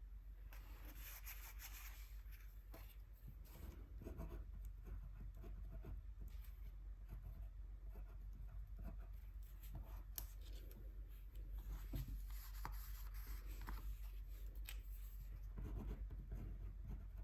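Soft rubbing and scratching on paper, with scattered small clicks and taps, as acrylic gouache is swatched by hand.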